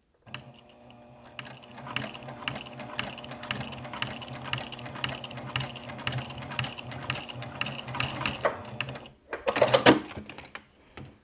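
Juki TL2010Q straight-stitch sewing machine topstitching through thick layers of cork and leather with a Tex 30 top thread, its motor hum and needle strokes building up about a second in and running steadily stitch by stitch. It stops near the end, and a brief louder sound follows.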